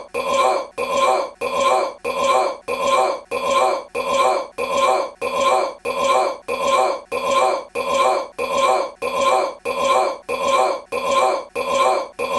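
A man's single short belch looped over and over, repeating identically about three times every two seconds.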